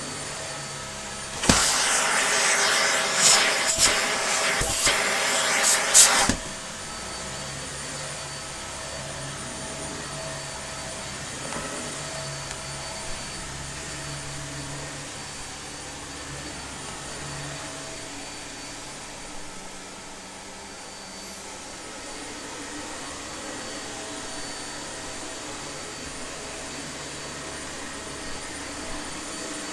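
Dyson upright vacuum cleaner running. It gives a loud, rough rushing sound for about five seconds near the start, then settles to a steady, quieter motor hum with a constant whine.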